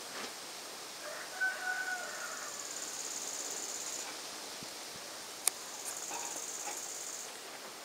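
Outdoor hiss with a single drawn-out animal call from some distance, lasting about a second, starting about a second in. A high steady hiss comes and goes twice, and there is one sharp click about five and a half seconds in.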